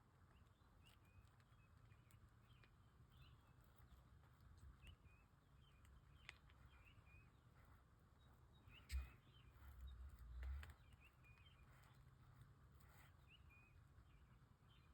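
Near silence in which a small bird chirps faintly and repeatedly, short high chirps a fraction of a second apart. Two low thumps come about two-thirds of the way through.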